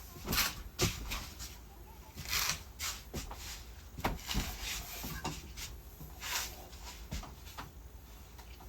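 Handling noises from working a smoke and carbon monoxide alarm unit by hand: scattered light clicks and knocks with a few soft rustles.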